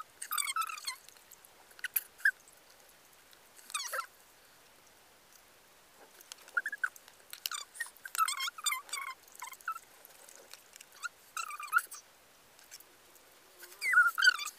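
Short bursts of hushed, high-pitched vocal sounds from two young women, stifled giggles and squeals, with quiet gaps between them; the loudest run comes about seven to nine seconds in.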